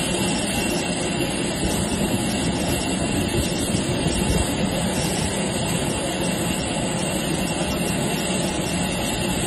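Steady jet engine noise from aircraft on the apron, an even, unbroken rushing hum.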